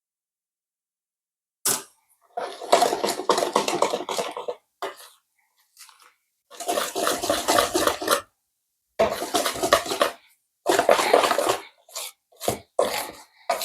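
Batter being whisked or stirred in a mixing bowl in stop-start bursts of one to two seconds, with a short sharp knock just before the first burst and a few shorter strokes near the end.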